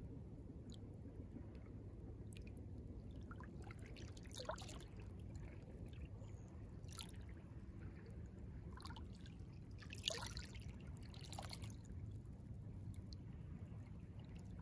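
Small waves of calm sea water lapping, a steady low wash broken by a few soft splashes and trickles, the strongest about ten seconds in.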